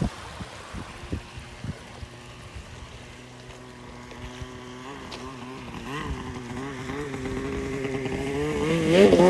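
2016 Polaris RMK snowmobile's two-stroke engine approaching, its steady note growing louder through the second half and rising slightly as it throttles up near the end. A few low thumps come in the first two seconds.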